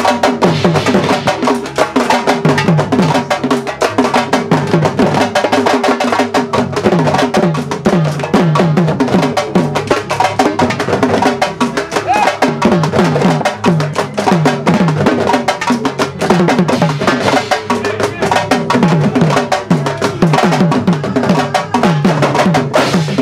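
Sabar drums played in a fast, dense ensemble rhythm: many quick strokes, with the deeper drums dropping in pitch on each hit.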